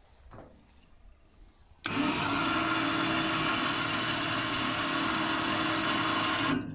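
Small electric winch on a ute's roo-carcass hoist arm running, winding in its cable to lift the hook. It starts suddenly about two seconds in, runs steadily with a hum, and stops just before the end.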